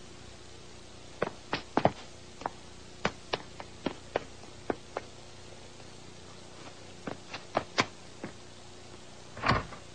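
A series of short, sharp knocks and taps at uneven spacing, some in quick pairs, with a pause in the middle, then one heavier thump near the end, over a steady faint hiss.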